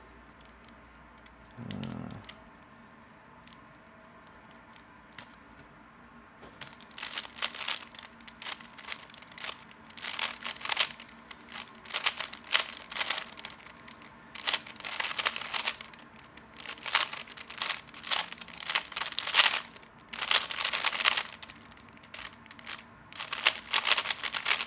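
A 3x3 speedcube being turned fast through a timed solve: quick runs of plastic clicking and clacking in bursts with short pauses, starting about six seconds in after a quiet stretch and stopping just before the end.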